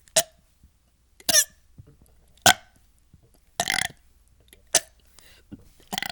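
A person burping over and over: six short burps about a second apart, the fourth one longer than the rest.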